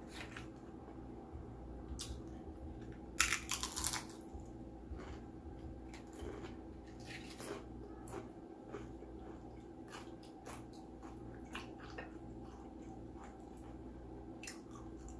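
Close-mic eating sounds: crunching and chewing corn tortilla chips, with a run of loud crunches about three seconds in and scattered smaller crunches and mouth clicks after.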